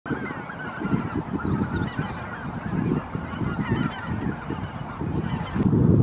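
A large flock of geese honking, many calls overlapping in a continuous chorus, over a low, uneven rumble.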